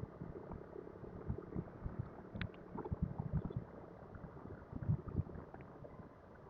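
Motorcycle on the move, heard muffled under wind buffeting the microphone: irregular low thumps over a faint steady noise.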